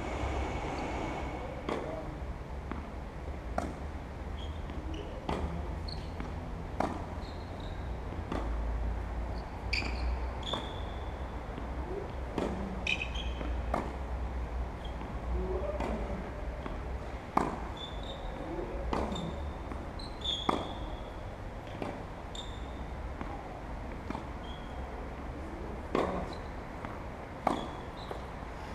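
Tennis ball struck by rackets and bouncing on the court: sharp pops at irregular intervals of one to two seconds.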